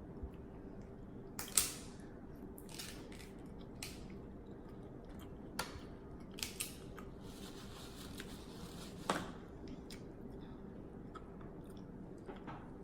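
Person eating snow crab legs: quiet chewing and smacking, broken by a few sharp cracks of crab shell, the loudest about a second and a half in and again about nine seconds in.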